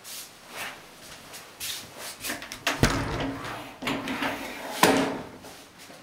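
Bathroom door being handled and opened: a run of knocks and clunks with some rubbing in between, the loudest hits about three seconds in and again near five seconds.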